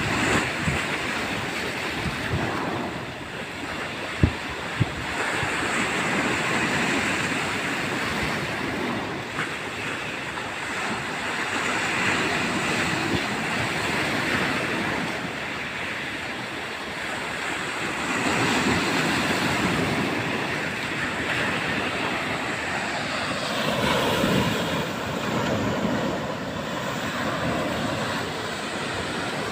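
Heavy surf crashing and rolling in a storm, with strong wind buffeting the microphone. The noise swells and eases every few seconds, and two sharp knocks come about four and five seconds in.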